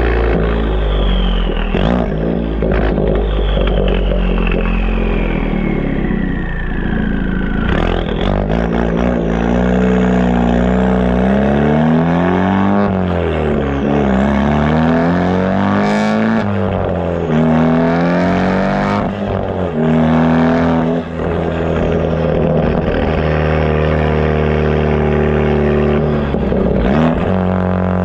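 The turbocharged four-cylinder engine of a Mk3 Ford Focus ST on the move, heard through an AWE aftermarket exhaust right at the twin tailpipes. The note holds steady while cruising, then rises and falls in pitch with the revs about halfway through before settling again.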